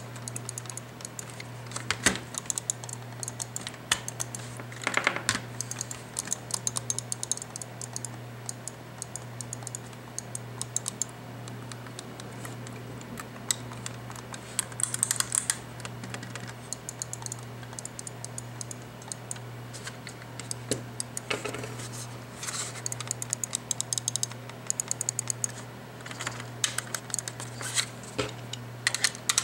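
Logitech G500s gaming mouse being handled and clicked: scattered small plastic clicks and quick runs of ticks, like button presses and scroll-wheel notches. A steady low hum sits underneath.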